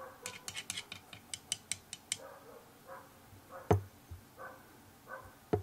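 A paintbrush clicking quickly against a watercolour palette as paint is mixed, then distant dogs barking several times, with a single knock in the middle.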